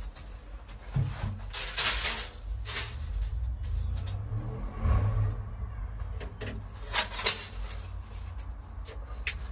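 Handling noises from measuring with a tape measure and marking with a pen: a few sharp knocks and scrapes, over a low rumble that swells in the first half.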